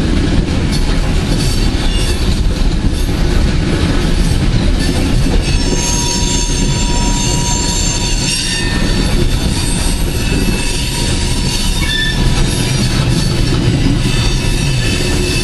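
Coal train's open-top cars rolling past, a steady low rumble of steel wheels on rail. High wheel squeals come and go, clearest a few seconds past the middle.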